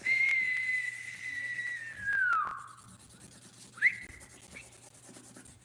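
A pen squeaking as it is drawn across paper: one long high squeal with a scratchy edge that drops in pitch at the end of the stroke, then a short rising squeak about four seconds in.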